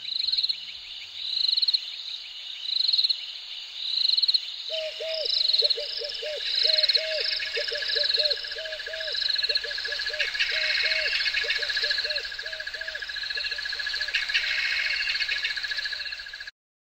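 A chorus of frogs croaking and insects chirping in a regular repeating pattern, played as a nature-sound track. It cuts off abruptly near the end.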